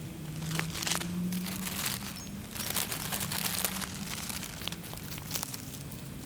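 Irregular crinkling and rustling, like something being handled, with many small clicks over a low steady hum. There is no bang.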